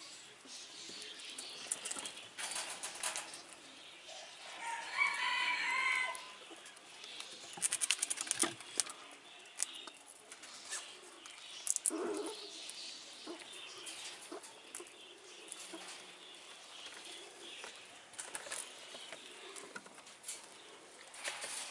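Red squirrels feeding on seed mix and scrambling over wooden stumps and branches: scattered clicks, scratches and patters, with a quick run of clicks about eight seconds in. A bird calls for about a second around five seconds in.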